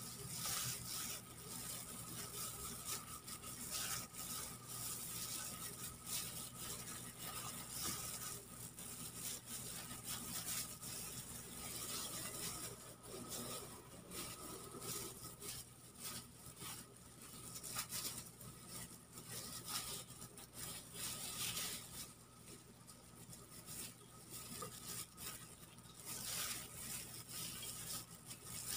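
Hands pushing a filling of chopped tomato, onion and ginger into a squid body: irregular soft rustling and handling noises, over a steady low hum.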